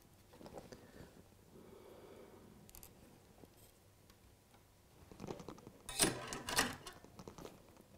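Quiet handling of wire and tools on a workbench while a dropper wire is soldered to a model railway rail, then a short run of sharp scratching and clicking sounds about six seconds in.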